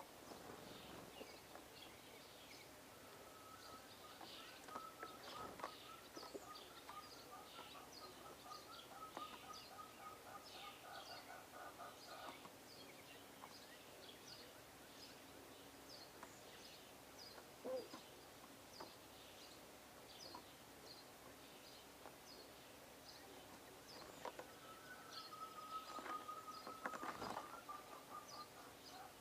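Small birds chirping faintly, with many short high chirps. A lower, rapid trill-like series runs for several seconds starting about three seconds in, and comes back near the end alongside a few soft taps.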